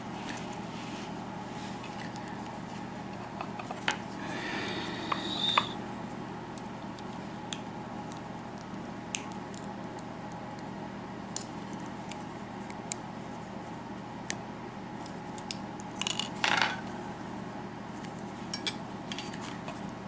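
Small metal clicks and clinks as a Euro cylinder lock is taken apart, with two longer scraping sounds of metal on metal, one about four seconds in and one near the end.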